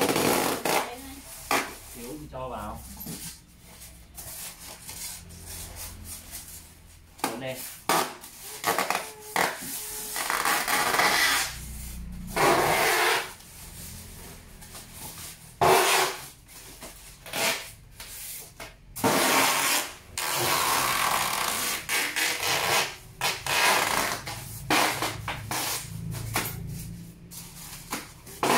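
Rubbing and scraping noises in uneven bursts, some lasting a few seconds, over a faint low hum.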